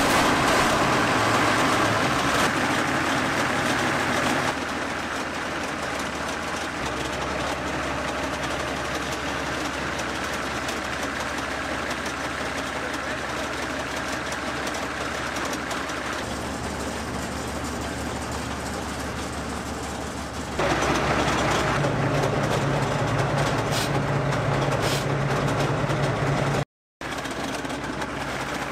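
Type 69-II tank's V12 diesel engine running just after start-up: loud for the first few seconds, then settling to a steady idle, and louder again at a higher speed about twenty seconds in. There is a brief dropout near the end.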